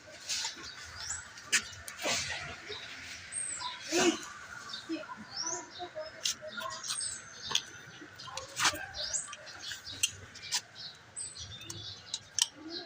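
Small birds chirping over and over in short rising calls, with scattered sharp clicks and taps from hand tools at work on the engine as the glow plugs are being removed.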